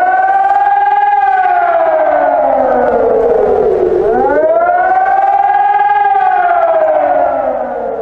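German civil-defence warning siren wailing. Its pitch climbs, sinks slowly, climbs again and sinks again: two slow rise-and-fall sweeps.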